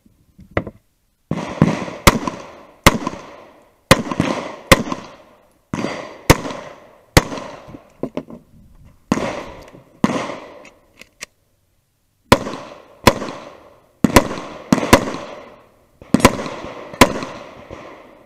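Glock 19 9mm pistol fired in a string of about eighteen shots, mostly about a second apart, each with a short echo. There is a pause of about two seconds a little past the middle before the firing resumes.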